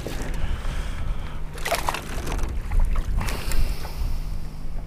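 Wind buffeting the microphone in an open fishing boat on the water, a heavy low rumble with a steady low hum under it. Two short splashy rustles break in, about two seconds in and again a second and a half later.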